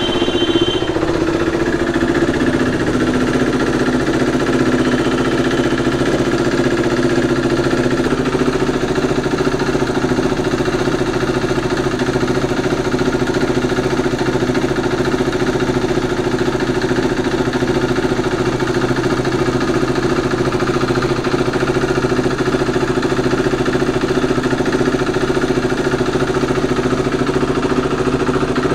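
KTM RC 390's single-cylinder engine idling steadily. It has just been started from another bike's battery and is left running so that its flat battery can charge.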